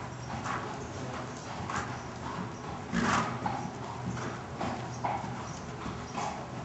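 Hoofbeats of an Appaloosa gelding, short strikes on the ground in an even beat of about two a second, one louder strike about three seconds in.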